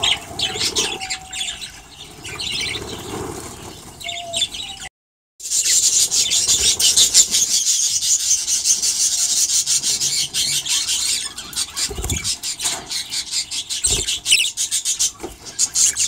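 A flock of budgerigars chattering and warbling in an aviary, with rapid high chirps. After a brief break about five seconds in, the chatter is louder and denser.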